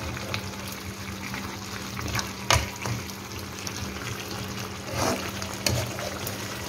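Chicken masala sizzling and bubbling in a karahi as it is fried (bhuna) and stirred with a metal spoon. The spoon knocks against the pan about two and a half seconds in, and twice more around five to six seconds in.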